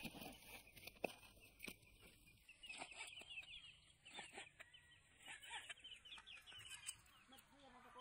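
Faint taps of a kitchen knife striking a plastic cutting board as fish is cut into pieces, with birds chirping in quick short calls from about two and a half seconds in.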